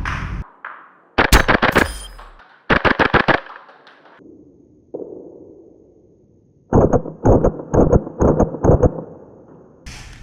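Airsoft rifle firing three quick bursts of several rapid shots each, with a few seconds' pause between the bursts.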